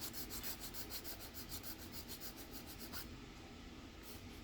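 Small hand file rasping on a tiny diecast toy-car part in quick back-and-forth strokes, about five a second, filing down a bump so the swapped wheels can spin; the strokes stop about three seconds in.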